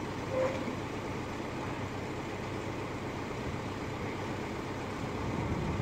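An engine running steadily, a low, even hum.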